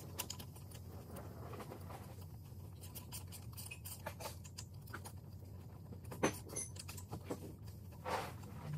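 Hand ratchet and socket clicking and clinking against metal while the bolts of a semi truck's hub cap are turned down by hand, one sharper click about two-thirds of the way through.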